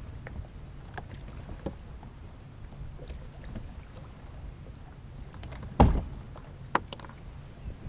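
Knocks and clunks on a bass boat's front deck over a low steady rumble. The loudest is a heavy thump about six seconds in, followed by a sharper knock about a second later.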